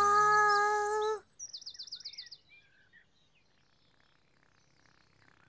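A loud held note, one steady pitch, that stops about a second in. It is followed by a quick high birdsong trill of about eight chirps a second and a few scattered chirps, then near quiet.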